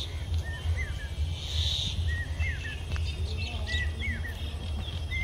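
Bird chirping: a run of short, quick rising-and-falling notes repeated every half second or so, over a steady low rumble.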